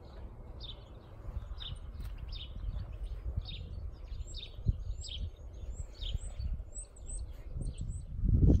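Small birds chirping, a run of short repeated calls about twice a second with higher, quicker notes joining in the second half, over a low rumble of wind on the microphone that grows louder near the end.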